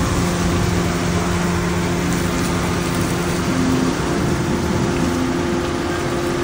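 A car engine running steadily with a constant hum and an even hiss of noise, with no change in pitch.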